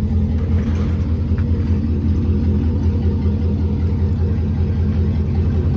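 GMC pickup truck's engine running through its newly repaired exhaust, a steady deep rumble with no change in pitch.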